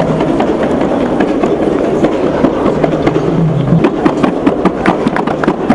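Hubbub of a crowded hall with many short, sharp percussive strikes that come thicker in the second half.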